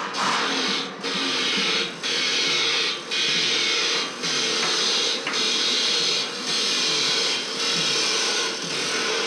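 A power tool running in repeated bursts of about a second each, with brief breaks between them.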